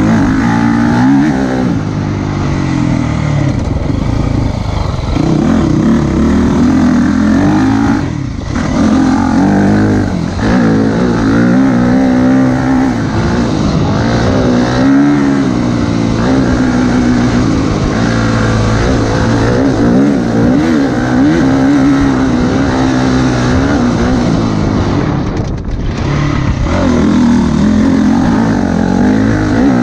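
KTM motocross bike's engine revving hard, its pitch climbing and dropping again and again as the rider works the throttle and shifts gears, with brief throttle-offs about eight seconds in and again a few seconds before the end.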